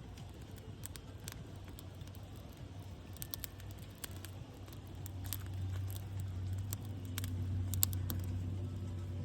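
Dry sticks and leaves crackling and rustling in small, scattered clicks, with a low rumble that grows louder about halfway through.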